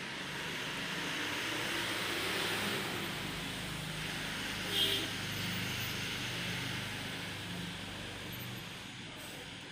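Outdoor road traffic: a motor vehicle passing, its noise swelling and easing off, with a brief higher-pitched sound about five seconds in.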